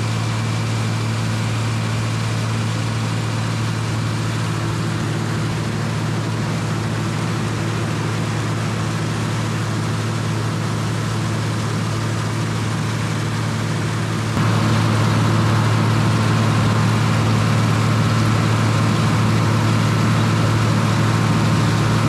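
International 686 tractor engine running steadily under load, driving a mounted New Idea corn picker through standing corn. It gets louder about two-thirds of the way through and stays there.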